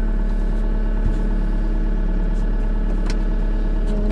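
New Holland C327 skid steer's diesel engine running at a steady, constant speed.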